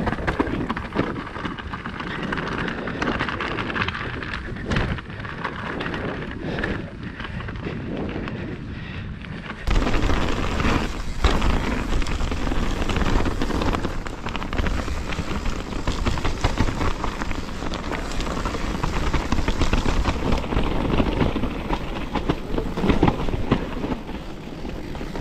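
Mountain bike rolling fast down a rocky dirt trail: tyres on dirt and loose stones with scattered knocks, and wind rushing over the camera microphone. About ten seconds in the noise turns abruptly louder and deeper.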